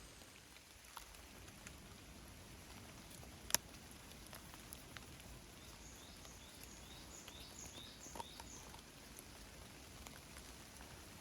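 Light rain falling outdoors with scattered drips, a single sharp click about three and a half seconds in, and a bird giving a quick run of short, high, falling chirps over a couple of seconds past the middle.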